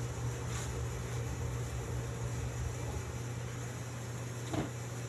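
Heater running with a steady low hum, loud enough that it would drown out speech. A short, brief sound stands out about four and a half seconds in.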